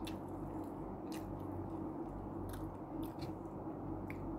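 A person chewing food with her mouth, with small sharp mouth clicks and smacks here and there, over a steady low hum.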